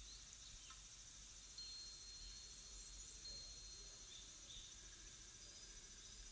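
Faint nature soundscape: crickets chirping in a steady high chorus, with a few short bird chirps and a thin held whistle for a couple of seconds in the middle.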